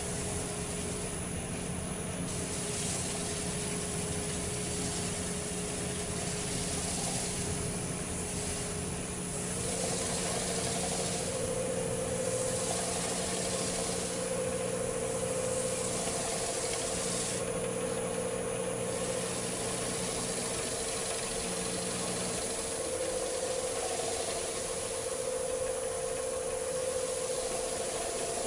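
Wood lathe running with a steady motor hum that steps up in pitch about ten seconds in as the speed goes up. Over the hum comes a hissing rub as Yorkshire Grit microfine abrasive paste is worked by hand into the spinning walnut bowl.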